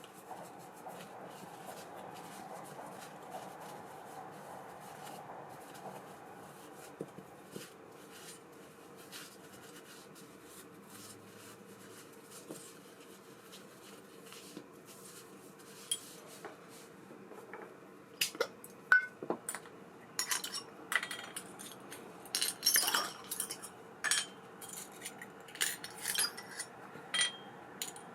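Small metal parts of an Abu Ambassadeur 5500C baitcasting reel clinking and clicking as they are handled. A faint steady hum fills the first half, then a quick string of sharp metallic clinks begins over halfway in.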